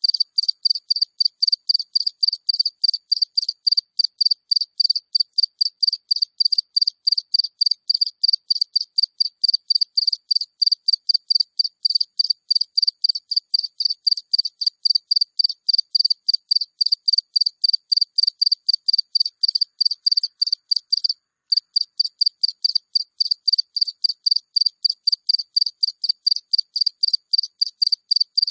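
A single cricket chirping close up: short high-pitched chirps repeated steadily about four times a second, with a brief break about 21 seconds in.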